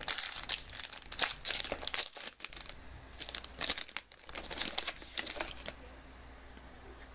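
Foil wrapper of a Topps Inception football card pack being torn open and crinkled, a rapid irregular crackling that dies down after about five and a half seconds.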